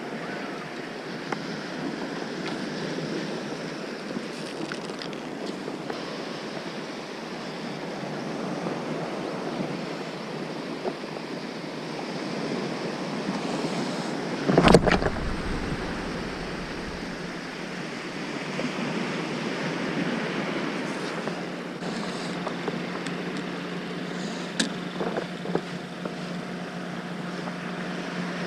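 Small waves washing on a sandy beach, with wind on the microphone. A single loud, low thump comes about halfway through.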